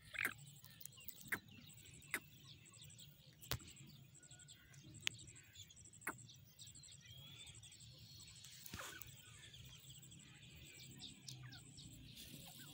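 Faint grassland ambience with small bird chirps: sharp clicks and ticks every second or so, many short high chirps, and a fast, high pulsing trill underneath, with a brief rustle about nine seconds in.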